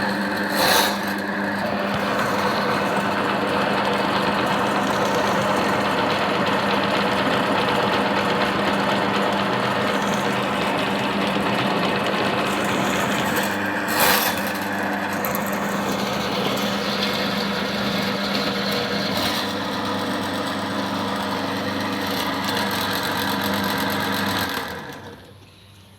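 Electric drain-cleaning machine running, spinning a spiral steel cable through a clogged drain, with a steady motor hum and two sharp knocks, one about a second in and one midway. The machine shuts off shortly before the end.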